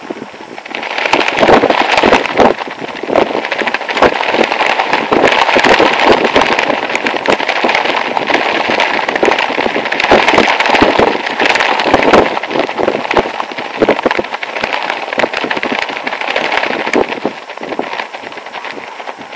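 Nylon shell-suit jacket and trousers flapping in strong wind, a dense, rapid crackle of fabric snapping. It swells about a second in and eases off near the end.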